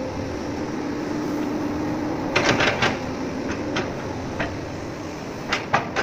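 A magnetic excavator's engine runs steadily, with a hum. Sharp knocks come in a quick cluster about two and a half seconds in and again near the end, with a few single knocks between.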